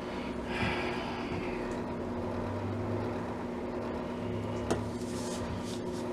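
A steady low hum with a brief hiss near the start, low rumbling in the middle, and a single sharp click about three-quarters through, typical of handling noise on a workbench.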